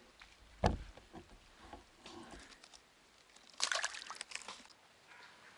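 A dull thump about half a second in, then about a second of water splashing and sloshing past the middle.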